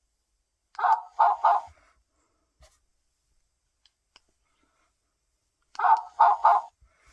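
Battery-operated interactive toy dog barking: a quick run of three barks about a second in and another run of three near the end, with silence between.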